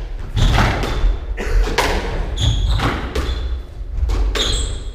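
Squash rally: the ball is struck by rackets and hits the court walls over and over, each sharp impact echoing in the enclosed court, with low thuds of running feet and short shoe squeaks on the wooden floor.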